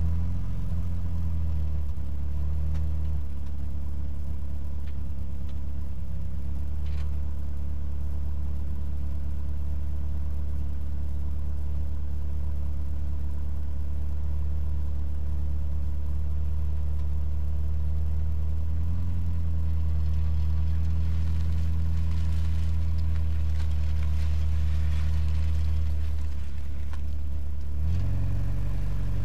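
The exhaust of a Corsa's C20XE 2.0-litre 16-valve four-cylinder engine, heard close up, idling steadily. Near the end the note changes as the car pulls away.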